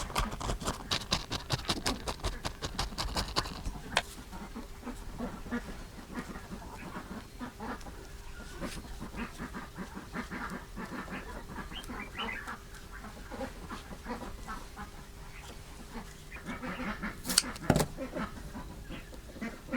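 Farmyard birds calling on and off. A quick run of clicks and taps fills the first few seconds, and there is one loud sharp knock late on.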